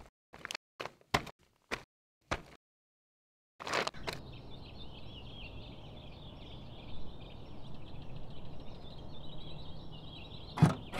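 Footsteps on a dirt path, about two or three a second, for the first two seconds or so. After a second of silence, a steady outdoor hiss with faint high chirping sets in, with a single sharp knock near the end.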